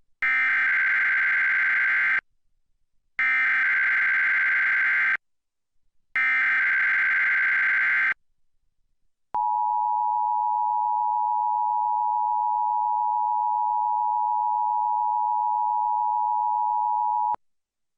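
Emergency Alert System tones opening a required monthly test: three identical two-second bursts of the warbling SAME digital header, then the steady two-tone 853/960 Hz attention signal for about eight seconds, cut off sharply.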